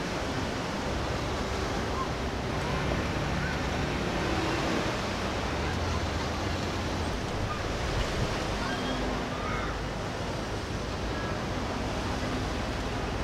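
Steady wind and water noise, an even rush with no distinct events.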